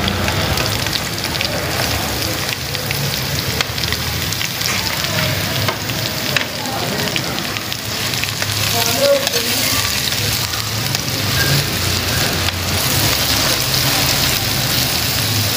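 Green onions and julienned carrots sizzling steadily in hot ghee in a metal pan, with a metal spoon stirring and scraping, giving scattered light clicks against the pan.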